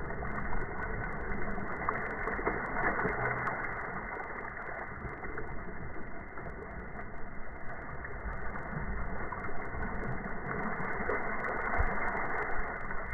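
Dragon boat paddles dipping and splashing through the water, heard as a rough rush of water and wind noise with scattered irregular splashes and knocks.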